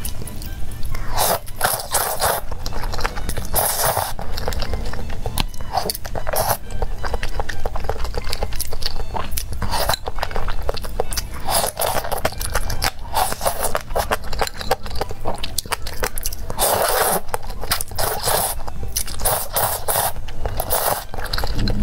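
Close-miked noodle eating: noodles slurped from wooden chopsticks in repeated short bursts, with wet chewing and sharp clicks and scrapes of the chopsticks in the bowl.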